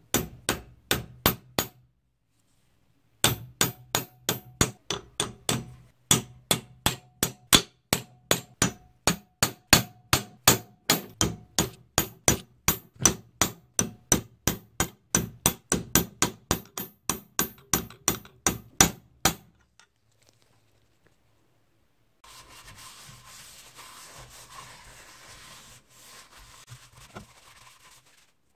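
Hammer blows on a steel punch set against the end of the antique meat grinder's clamp screw, peening it over: rapid, even metallic strikes about three a second with a ring after each, pausing briefly about two seconds in. After the blows stop there is a few seconds' gap, then a steady scraping hiss near the end.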